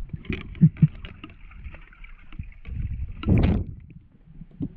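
Muffled underwater sound from a camera in its waterproof housing while a diver swims: irregular low thuds and sloshing. A fainter hiss runs for about three seconds and ends in a louder rush about three and a half seconds in.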